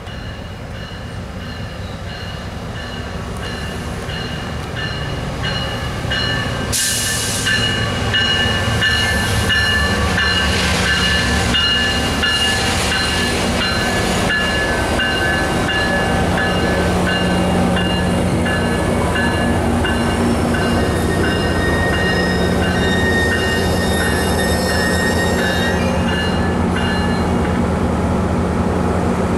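Metrolink MP36PH-3C diesel locomotive, a 16-cylinder two-stroke EMD engine, approaching and rolling slowly past with its bilevel cars as it pulls into the station, growing louder over the first several seconds and then steady. A steady high-pitched squeal from the braking train runs over the engine hum, with a brief hiss about seven seconds in.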